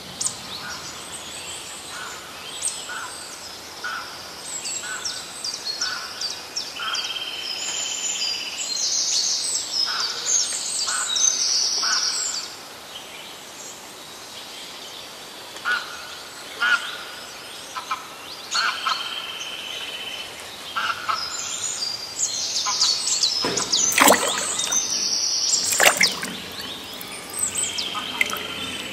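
Several birds chirping and calling, with quick repeated notes and a few short held whistles. Near the end come two sharp knocks.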